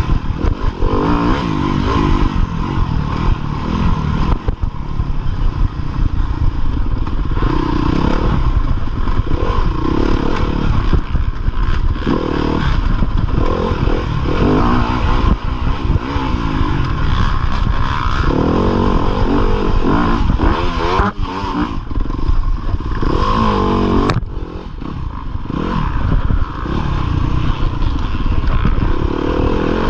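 Yamaha YZ250FX dirt bike's 250cc four-stroke single-cylinder engine revving up and down under racing throttle, heard from the rider's chest. The revs climb and fall repeatedly, and the throttle eases off briefly about three quarters of the way through.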